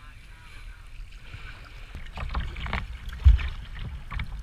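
Kayak paddle strokes splashing in the water, starting about two seconds in, over a low rumble. A loud thump comes a little past three seconds.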